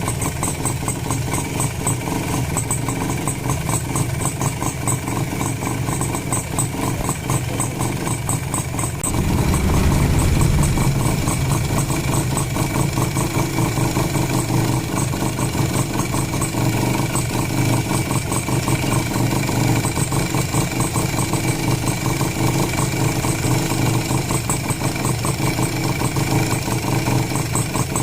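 Honda H100S single-cylinder two-stroke motorcycle engine running at idle just after its oil pump has been refitted. About nine seconds in it briefly picks up and gets louder, then settles back to a steady idle.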